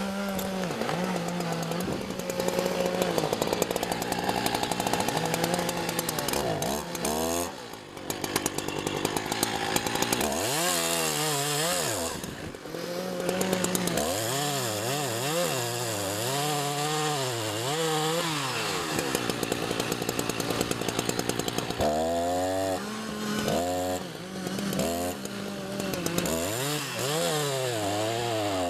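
Chainsaw cutting through a mature ash trunk. The engine runs throughout, its pitch swinging up and down over and over as the saw works the cut, with two brief drops in level about a third of the way in.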